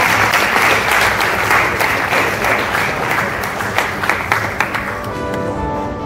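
Audience applauding, a dense patter of many hands clapping. It dies away about five seconds in as music with held notes comes up.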